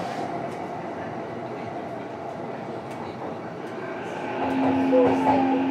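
Running noise heard inside a JR East E233-7000 series electric multiple unit motor car as it travels along the line. It is a steady rumble of wheels and running gear that grows louder about four seconds in, when a steady low hum sets in.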